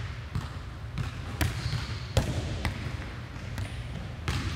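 Volleyball serving practice on a hardwood gym floor: a hand striking a volleyball and the ball thudding and bouncing on the floor. There are about six sharp knocks at uneven spacing, the loudest about two seconds in, over a steady low rumble.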